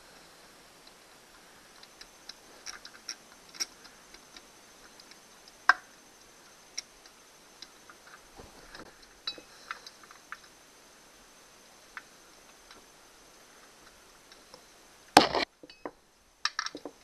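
Scattered light metallic clicks and ticks of a socket on a long extension turning out bolts from an outboard motor's housing, with one loud knock near the end.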